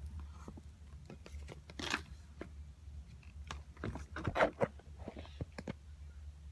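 Hands squeezing and stretching homemade Model Magic clay slime, giving irregular sticky crackles, clicks and small pops, the loudest cluster about four seconds in, over a steady low hum.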